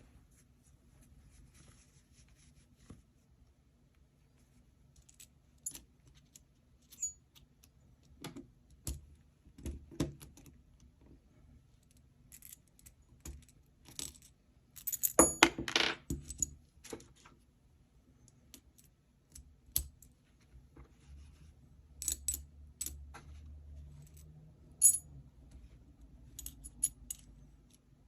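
Aluminum cranky fidget being worked by hand: scattered metallic clicks and clinks, with a dense run of clicking about fifteen seconds in and another cluster a little after twenty seconds.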